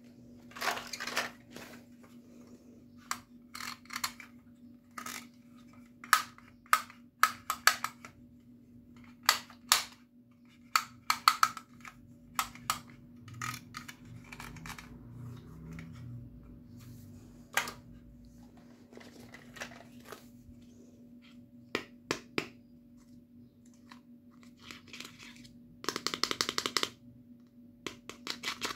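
Hard plastic toy accessories clicking and tapping against each other as they are handled and lifted out of a clear vinyl zip bag, in scattered single knocks with a quick rattling run of clicks near the end. A faint steady hum runs underneath.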